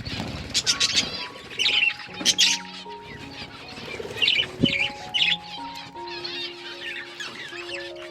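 Budgerigars chirping and warbling in quick, bright calls, several of them loud and sharp, over soft background music of slow held notes.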